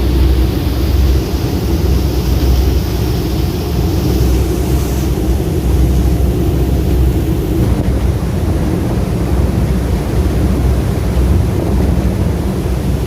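Passenger boat's engines droning steadily at cruising speed, with a constant rush of wind and water over the top.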